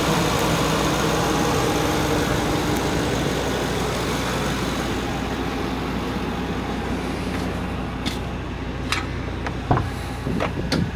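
2011 Ford E-250 van's gasoline V8 idling steadily with the hood open, getting slightly quieter partway through. A few sharp clicks and knocks near the end as the driver's door is opened.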